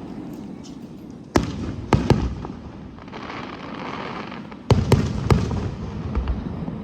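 Aerial fireworks shells bursting: a bang about a second and a half in, a quick pair about two seconds in, and a cluster of three near the end. A low rumble carries between the bursts, with a stretch of softer hiss in the middle.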